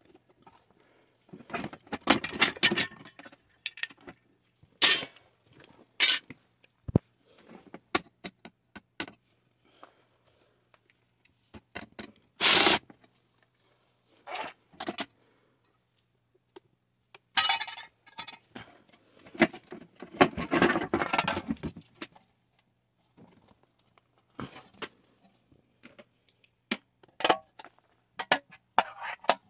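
Thin sheet-metal parts of an Iwatani portable butane stove being handled and pulled apart: irregular clanks, scrapes and rattles of metal on metal, busiest about two seconds in and again around twenty seconds.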